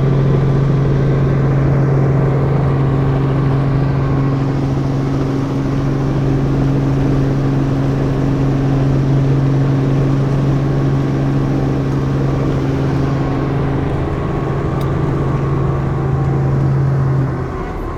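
Helicopter running, heard from inside the cabin: a loud, steady drone with a strong low hum that drops away shortly before the end.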